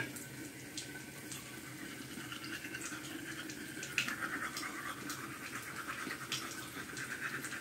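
Manual toothbrush brushing teeth, a faint steady scrubbing with a few small clicks.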